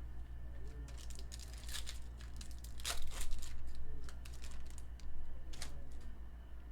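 Crinkling and tearing of a foil trading-card pack wrapper, with scattered light rustles and clicks of cards being handled.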